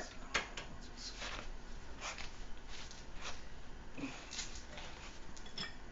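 Hand tools working bolts on a car's rear hub and brake assembly: scattered, irregular metal clicks and short scrapes.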